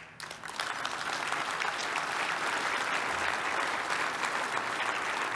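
Audience applauding, swelling in quickly and holding steady.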